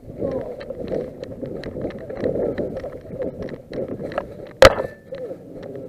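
Rustling and crunching of a player moving with gear through brush, with many small ticks. A little over four and a half seconds in comes a single sharp crack with a brief metallic ring.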